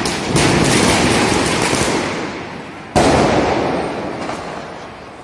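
Fireworks going off: a dense burst of crackling bangs that fades over a couple of seconds, then one sharp loud bang about three seconds in that echoes away slowly.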